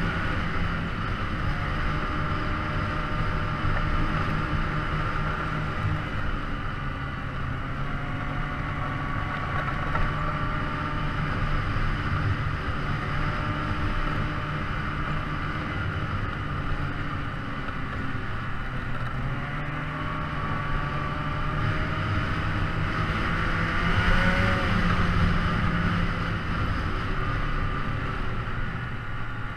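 An engine running steadily, its pitch drifting up and down a little, slightly louder about 24 seconds in.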